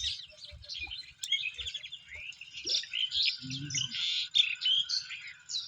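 Many small birds chirping and twittering together in a dense, continuous chorus of quick overlapping calls. A short low voice-like sound comes a little past halfway.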